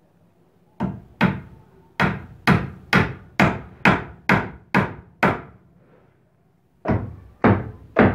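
Hammer driving a nail into a wooden plank brace. The sharp blows come at about two a second, then stop for over a second before three more blows near the end.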